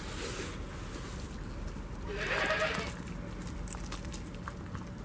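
A goat bleats once, briefly, about two seconds in. Around the call come small clicks of a goat kid biting and chewing a piece of banana.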